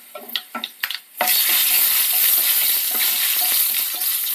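Dried red chillies and mustard seeds frying in hot coconut oil, the tempering stage of the dish. A few scattered crackles, then about a second in a loud, steady sizzle starts suddenly as a wooden spatula stirs them through the oil.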